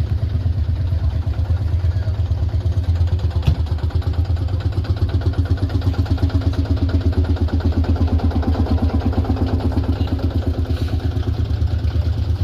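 Old vehicle engine idling steadily with an even, pulsing beat, and a brief click about three and a half seconds in.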